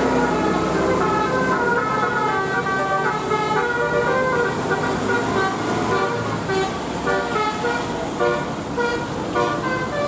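Multi-tone telolet bus horn playing a tune of stepped notes, the notes getting shorter and choppier in the second half, over the low rumble of the road.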